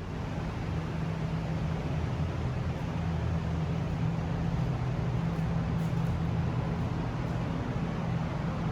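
Steady mechanical hum with a constant rush of air noise, like a machine or ventilation fan running without change.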